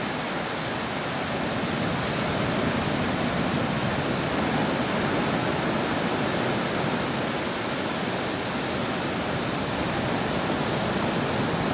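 Steady, even rushing of surf washing along the shore, with no single wave crash standing out.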